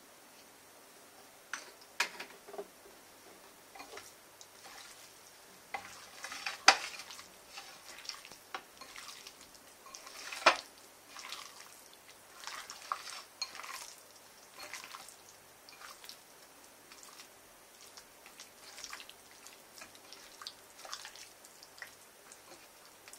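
Raw chicken pieces being handled by hand in a bowl: soft wet squishing with scattered clicks and knocks against the bowl, a few of them sharper and louder.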